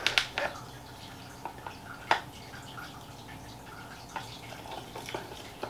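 A few light, scattered clicks and taps of hands handling a small clear acrylic enclosure, fitting a small magnetic hide to it; the sharpest tap comes about two seconds in.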